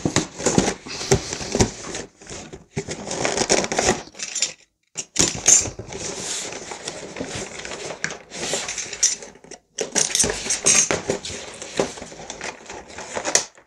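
Cardboard toy box being pulled open and unfolded by hand: rustling, scraping and tearing of the cardboard flaps in bursts with a few short pauses.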